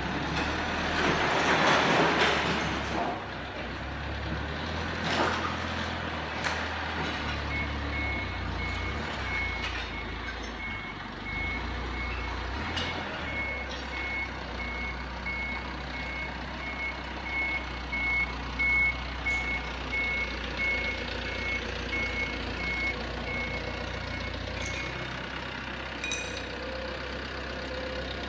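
Toyota forklift's engine running while its reversing alarm sounds a rapid, even series of high beeps for most of the time, stopping a few seconds before the end. A loud rush of noise swells and fades in the first three seconds, with a few sharp knocks.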